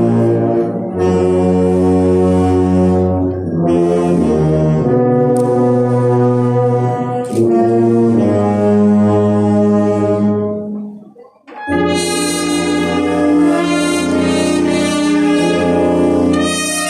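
Brass band playing slow, long-held chords in the manner of a processional funeral march. The music drops away briefly about eleven seconds in, then returns with brighter, higher chords.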